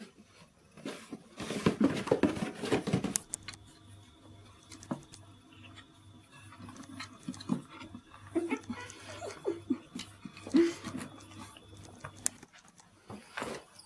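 Two ginger cats play-fighting on a carpeted floor: scuffling, thumps and paw patter, with a loud flurry about a second in, scattered knocks after and another burst near the end.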